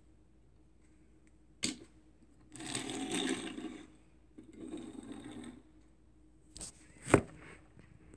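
Small die-cast metal toy vans handled on a hard desktop: a click as one is set down, two scraping stretches of about a second each, then two sharp knocks near the end, the second the loudest.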